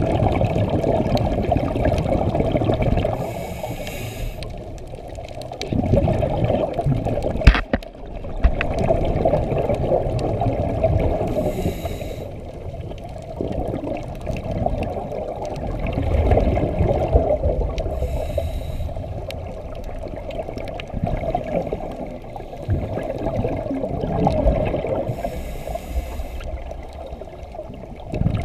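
Scuba diver breathing through a regulator underwater: about four breaths, each a short hiss on the inhale and a longer rush of exhaled bubbles. One sharp click about seven seconds in.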